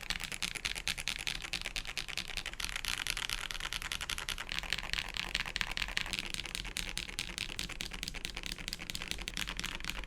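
Fast continuous typing on a GMMK Pro mechanical keyboard with lubed Akko Ocean Star tactile switches and Akko Macaw PBT keycaps: a dense, steady stream of key clacks.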